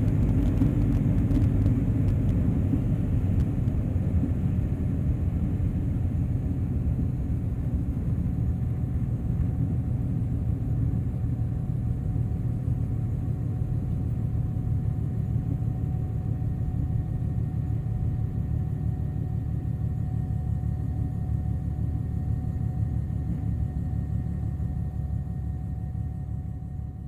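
A small aerobatic biplane's piston engine idles steadily on the ground, a low rumble heard from inside the cockpit. It slowly gets quieter and fades out near the end.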